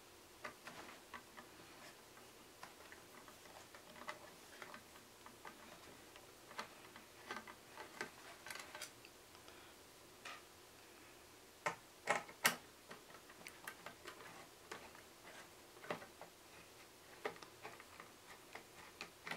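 Faint, irregular small clicks and ticks of a screwdriver working screws loose from the synthesizer's metal rear panel and main board, with a few louder clicks about two-thirds of the way through.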